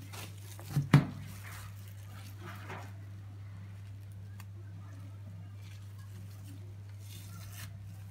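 Cling film being peeled off a cake roll by hand, with soft crinkling and rustling. Two sharp knocks come about a second in, over a steady low hum.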